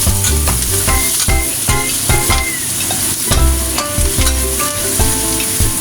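Sliced hairy gourd sizzling in hot oil as it is stir-fried, with background music playing over it in a run of held notes and a bass line.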